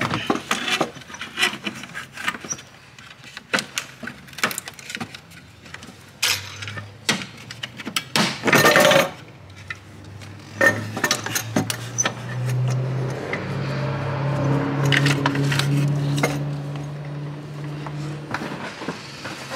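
Metal clanking, clicking and scraping as the stock turbocharger of a 6.0L Power Stroke diesel is wrestled loose from its mounts and the oil drain tube, with a louder scraping rattle a little before halfway. A low steady hum comes up in the background in the middle and fades near the end.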